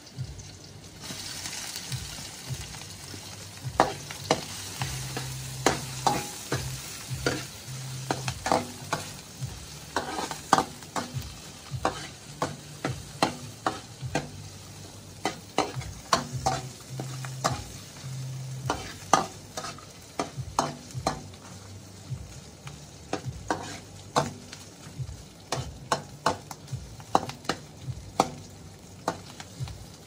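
Chopped ingredients sizzling in an oiled wok while a metal ladle stirs them, clinking and scraping against the pan again and again at an irregular pace. The sizzle comes up about a second in as the food goes into the hot oil.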